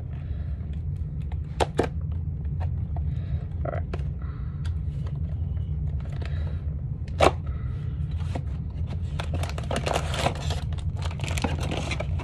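Plastic blind-bag packaging crinkling and tearing in the hands, with sharp crackles and two louder snaps; the crinkling gets denser near the end. A steady low hum runs underneath.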